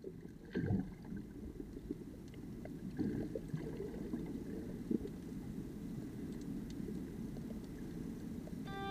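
Muffled underwater ambience in shallow water: a low, steady rush of water noise with a few faint clicks and knocks, the clearest about half a second in.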